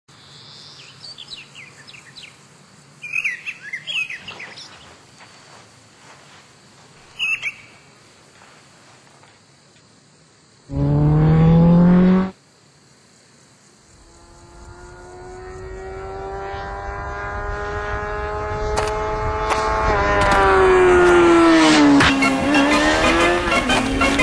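Birds chirping, then a Kawasaki Ninja sport bike's engine: a short, very loud burst that rises in pitch and cuts off sharply, then a long approach, growing steadily louder on a high engine note that dips near the end and climbs again.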